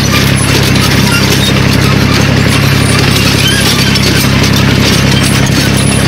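Rotary tiller's engine running steadily under load while its tines churn dry, clumpy soil, a constant loud mechanical hum under a dense rushing clatter.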